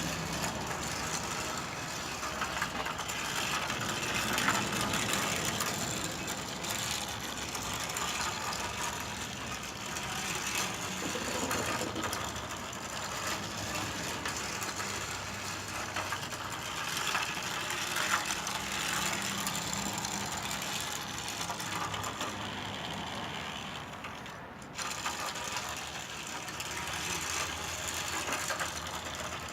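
A battery-powered toy train running on its track, its small motor and gears giving a steady mechanical clatter of fine clicks. It drops briefly about 25 seconds in, then resumes.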